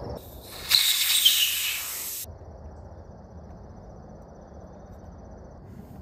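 Air hissing out of a tractor tire's valve stem for about a second and a half, opened to take in tire sealant, then stopping abruptly. Afterwards only faint outdoor background with a thin, steady insect chirr.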